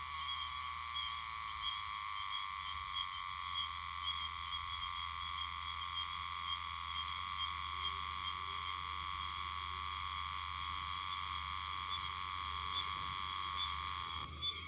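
Oshima cicada (Meimuna oshimensis) singing: one steady, machine-like electronic whine, stopping near the end.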